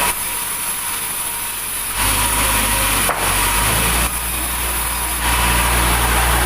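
Sawmill saw cutting through wood: a steady high hiss over the low hum of the mill's engine. The sound changes abruptly several times, the engine hum rising about two seconds in.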